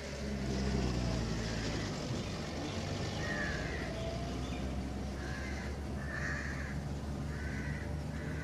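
A van's engine running with a steady low hum, with several short harsh calls over it from about three seconds in.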